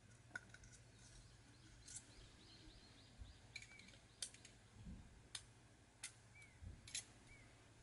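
Faint, scattered sharp clicks of small parts being handled at an opened electric airsoft gun gearbox, about five distinct clicks over several seconds.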